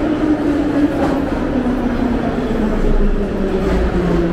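Metro train pulling in alongside the platform, its motors whining in a steadily falling pitch as it slows. A low rumble of wheels on rail grows stronger near the end.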